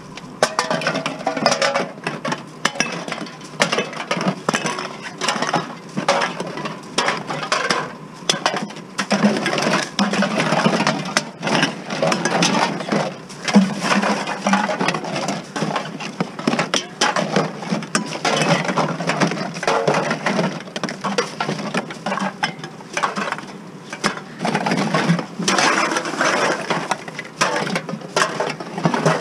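Bottles clinking and clattering against each other in quick, irregular knocks as a pile of them is gathered by hand from a bin.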